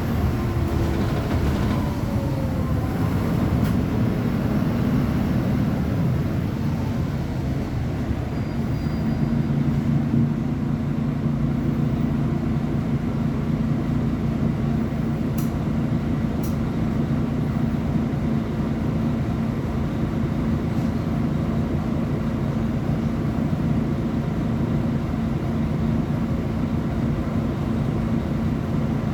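Mercedes-Benz O500UA Bluetec 6 articulated bus engine running with a low rumble. From about nine seconds in it settles into a steady drone.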